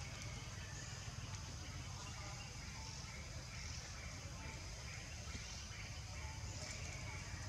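Woodland ambience: a steady high insect buzz with faint, scattered bird chirps over a low rumble.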